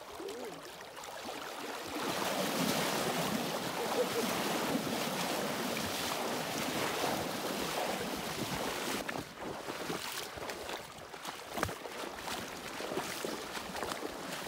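Legs in waders wading through a shallow, flowing river, water splashing and rushing around them; the splashing grows louder about two seconds in and becomes more uneven later.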